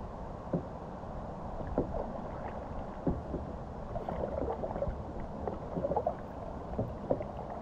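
Kayak paddling on a slow creek: paddle blades dipping and pulling through the water with small splashes and drips, a few sharper splashes scattered through and a busier patch of splashing about halfway in, over a steady low background rush.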